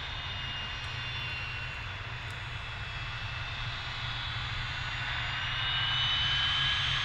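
Aircraft turbine engines whining, with a steady low rumble underneath. The whine slowly rises in pitch and the sound grows louder about two-thirds of the way in: an aircraft spooling up for takeoff.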